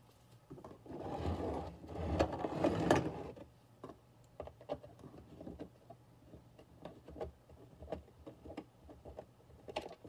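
Plastic wall-clock parts being handled and shifted on a desk for a few seconds, then a small screwdriver working screws out of the clock's plastic case: a string of light, irregular clicks and scrapes.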